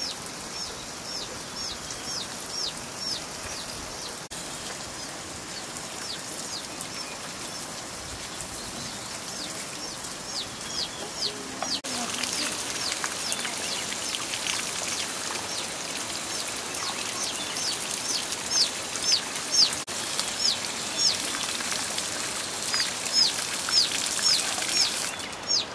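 Short, high, falling bird chirps repeating a few times a second over a steady hiss. From about halfway through, water splashing steadily from a spout onto a wet stone slab as leafy greens are rinsed under it by hand.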